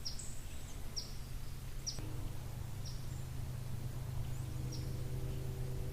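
A small bird calling in short, sharp, high chips that drop in pitch, repeated about once a second, over a steady low hum.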